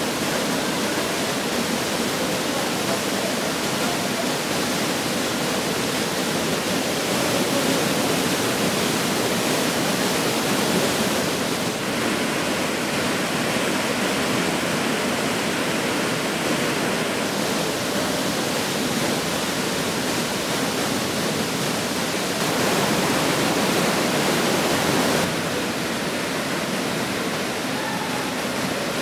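Empress Falls waterfall, a steady rush of falling water. Its loudness and brightness jump abruptly several times through the stretch.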